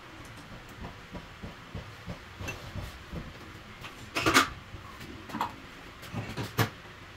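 Scattered metal clicks and clanks of hand tools and small metal parts being handled, with the loudest clatter about four seconds in and a few sharper knocks toward the end.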